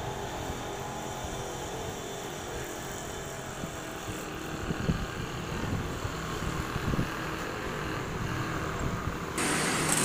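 Outdoor street noise: a steady low rumble of passing traffic. Near the end it switches suddenly to a louder, even hiss.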